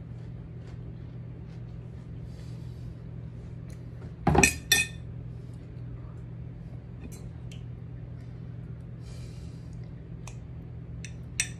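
A glass dish set down on a wooden countertop with two loud knocks close together about four seconds in, then a few light clinks of a fork against the glass dish, the last near the end. A steady low hum lies under it all.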